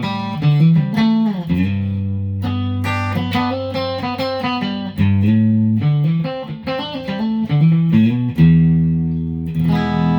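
Electric guitar played through an amplifier on a Jazzmaster-style guitar's bridge Widerange humbucker and middle P90 pickups together: picked single-note lines and chords over sustained bass notes, ending on a ringing chord near the end.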